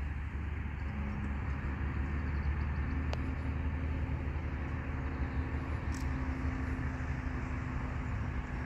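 Steady low outdoor rumble with a faint hum running through it, and a single light click about three seconds in.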